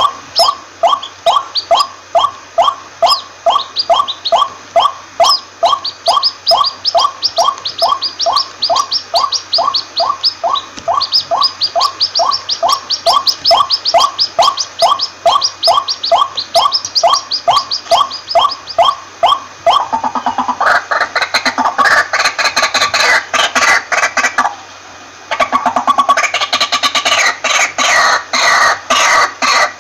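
White-breasted waterhen calling: one pitched note repeated steadily, about two a second. About twenty seconds in, the calls turn faster, rougher and louder, with a brief break a few seconds later.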